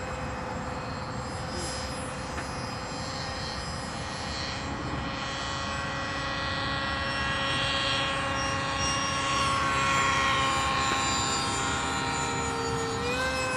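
70 mm electric ducted fan of a radio-controlled F-18 model jet running at high power, a steady whine over a rush of air as the model leaves the runway and climbs away. It grows louder about ten seconds in, and its pitch dips and recovers about thirteen seconds in.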